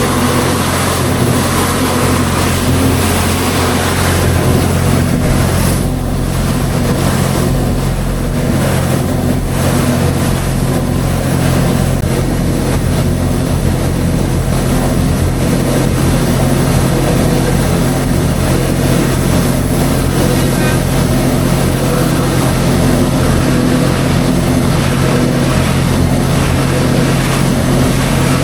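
Pressure washer running with a steady loud motor drone and an even hiss of spray.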